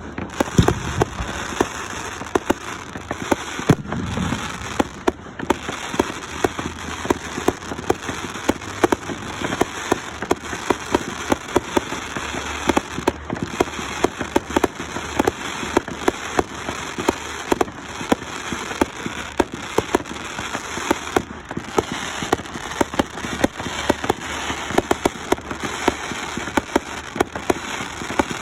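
Fireworks crackling continuously, a dense stream of rapid small pops and snaps, with a deeper boom right at the start and another about four seconds in.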